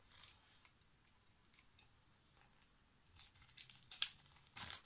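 Scissors cutting open a foil trading-card pack: a few faint clicks, then from about three seconds in a quick run of crisp snips and foil crackles.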